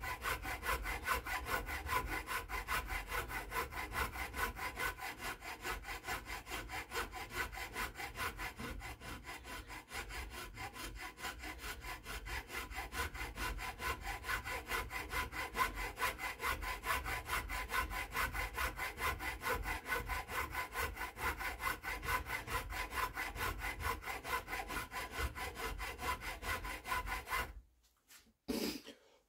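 A round file rasping along the wooden barrel channel of a rifle stock in quick, even back-and-forth strokes, opening up the channel. The filing stops shortly before the end.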